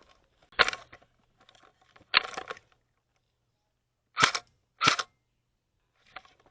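Airsoft gun firing single shots, about five sharp cracks at uneven intervals of one to two seconds.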